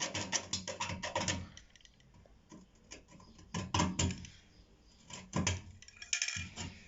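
A hand scraper working quickly over the washing machine's metal to clear rust, about eight to ten strokes a second, stopping about a second and a half in. A few separate knocks and clicks follow.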